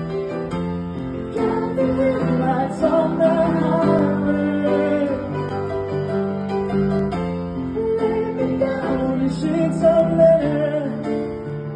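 A man singing live while playing a grand piano: held piano chords under a high, sustained vocal line.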